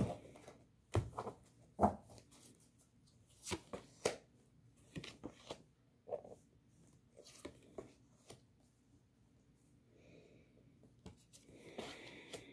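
A tarot deck being shuffled by hand: irregular soft clicks and snaps of the cards, in short clusters with pauses between.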